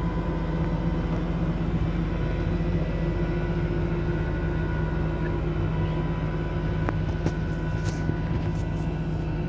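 Flatbed tow truck's engine running its bed hydraulics with a steady hum while the carried truck is set down. A few light clicks come about seven seconds in.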